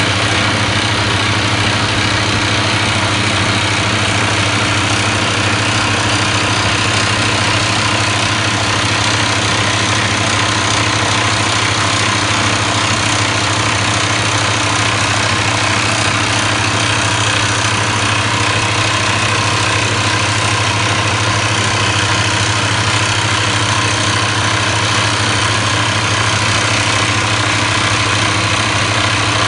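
Soosan SD-1300E crawler drill rig drilling into rock: its diesel engine and the rapid hammering of the drill make a loud, steady din, with a second drill rig working alongside.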